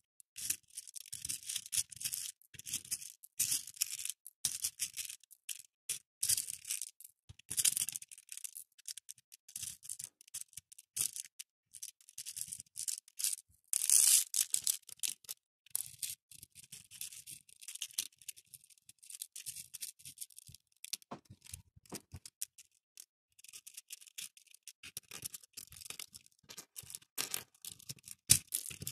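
Small plastic beads clicking and rattling as fingers pick faux pearl beads out of a plastic lid of mixed beads and drop them into a compartment of a plastic grid organizer box. The clicks come in irregular clusters with short pauses, with a louder clatter of beads dropping about fourteen seconds in.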